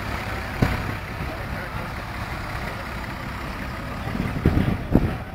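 Ford tractor's diesel engine running steadily at idle. A few short low thumps sound about half a second in and again near the end.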